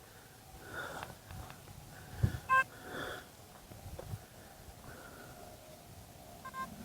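Metal detector sounding a short beep about two and a half seconds in, just after a low knock, then a run of quick repeated beeps near the end as the coil passes over a target.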